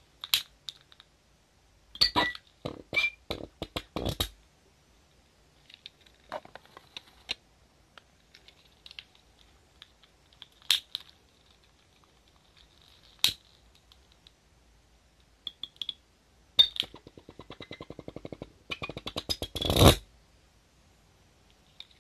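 A torch lighter clicks several times; then, about seventeen seconds in, the fuel-alcohol vapour in an empty glass bottle ignites with a pop and the bottle pulse jet fires as a rapid, even putter for about three seconds, loudest just before it stops.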